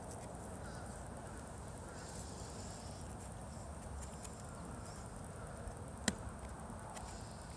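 Quiet outdoor background hiss with faint bird chirps, and one sharp click about six seconds in.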